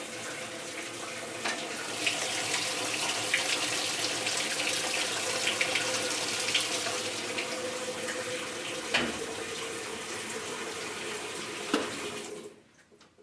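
Whirlpool direct-drive top-load washer filling with hot water: a steady rush of water pouring and splashing into the tub, with a few faint knocks. It stops suddenly near the end.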